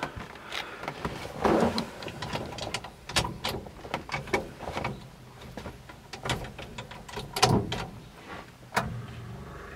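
A series of knocks and clunks from handling inside the 1936 Ford pickup's cab. About nine seconds in, a steady engine sound sets in: the flathead V8 idling.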